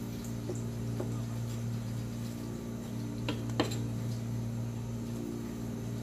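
Steady low machine hum, with a few light clicks and taps as a knife trims raw flounder fillets on a cutting board. The sharpest tap comes about three and a half seconds in.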